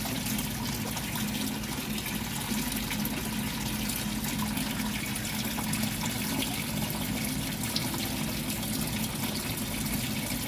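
Water from hoses pouring and splashing steadily into a concrete fish pond as it is refilled with fresh water, with a steady low hum underneath.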